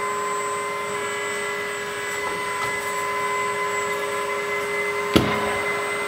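Electric hydraulic pump of a 1/14 LESU Komatsu PC360 RC hydraulic excavator running with a steady whine while the arm and bucket are worked. A sharp knock about five seconds in.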